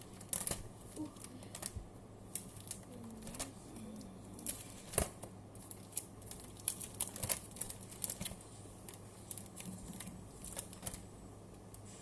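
Match Attax football trading cards being handled and flicked through: irregular sharp clicks and short rustles of card.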